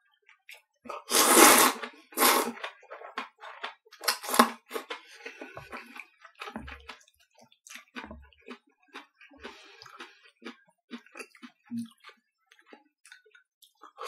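A person slurping udon noodles: two long, loud slurps in the first few seconds and another about four seconds in, then chewing with scattered small clicks, and a fresh slurp right at the end.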